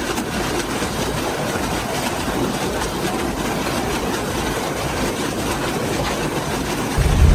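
Large wood chipper running with a steady, rough grinding noise. A deep low boom comes in near the end.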